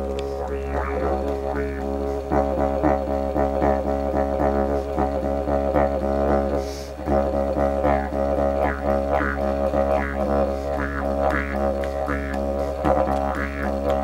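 Didgeridoo played as one steady low drone, its tone sweeping rhythmically brighter and darker. The sound dips briefly about halfway through.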